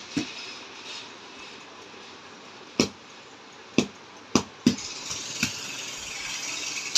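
About half a dozen sharp taps and knocks, spaced irregularly over a faint steady hiss, the loudest falling between about three and five seconds in.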